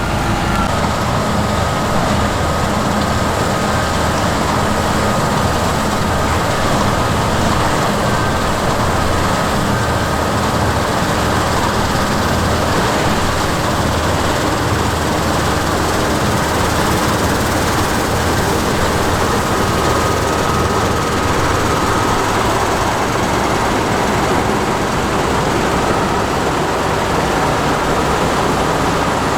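Heavy diesel farm machinery running steadily, with a constant engine hum and mechanical noise and no let-up.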